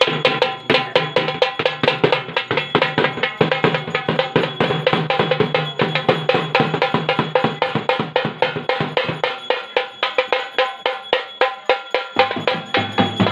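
Fast, steady puja percussion, several strokes a second, with ringing metallic tones held underneath. A low hum drops out about nine seconds in and comes back lower near the end.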